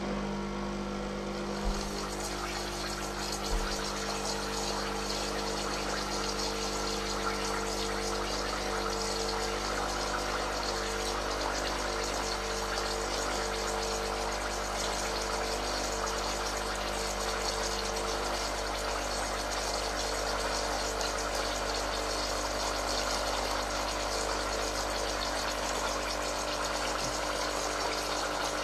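Lelit PL81T espresso machine's pump running steadily as water flows through the group head into a thermofilter during a brew-temperature test. It is a constant hum with water rushing, starting at once and holding level.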